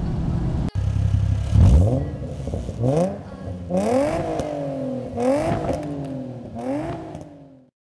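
2006 Nissan 350Z's 3.5-litre V6 through a cat-back dual exhaust: a short stretch of steady running under acceleration, then a sudden cut to repeated free-revving throttle blips, each rising sharply and falling back, fading out near the end.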